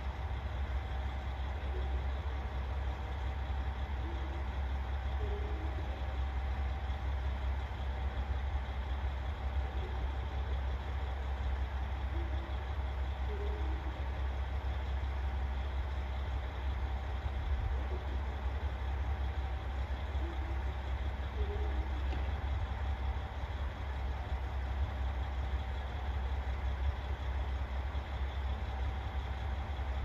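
KiHa 40 diesel railcar's engine idling steadily, a deep, even low hum.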